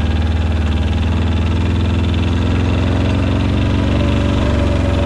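Arctic Cat diesel ATV's two-cylinder diesel engine running steadily, its pitch rising slightly near the end.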